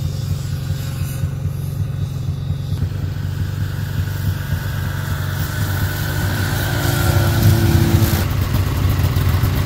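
Two-stroke 600 cc snowmobile engine running under way, getting louder in the last few seconds as a sled comes close.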